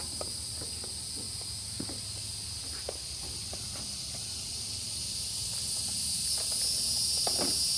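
Steady high-pitched drone of an insect chorus, growing a little louder about six seconds in, with a few faint clicks.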